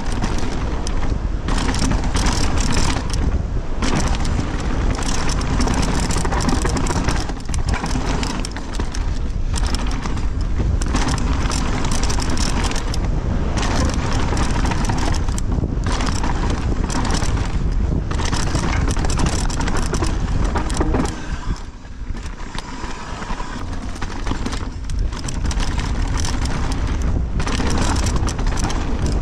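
Downhill mountain bike descending a rocky, leaf-covered dirt trail at speed: a constant rush of wind on the microphone, with the tyres rolling over dirt and stones and the bike's chain and frame rattling over bumps in many quick knocks. It eases for a few seconds about three-quarters of the way through.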